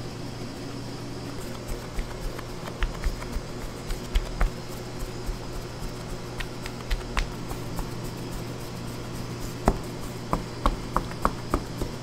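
Steady low hum of bakery machinery, with irregular light taps and knocks from hand work, ending in a run of about six quick taps.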